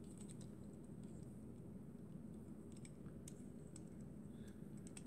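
Faint, scattered small clicks of a die-cast toy car being handled and turned in the fingers, over a low steady room hum.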